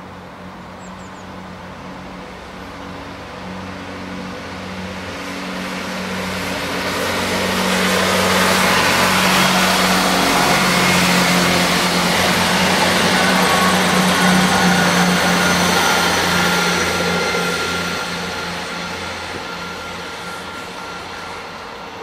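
Two coupled Class 158 diesel multiple units pulling away under power, their underfloor diesel engines running with a steady low note over wheel and rail noise. The sound builds as the train passes close by, is loudest about halfway through, and fades as it draws away.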